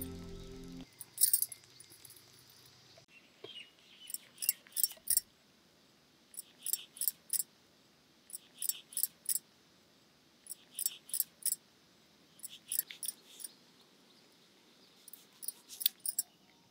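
A small bird calling outdoors: quick groups of three or four short, high-pitched chirps, repeated about every couple of seconds.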